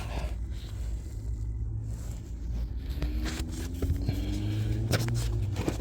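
Cabin air filter being dragged and scraped out of its cramped housing behind the glove box, with scattered clicks and rustles over a steady low rumble.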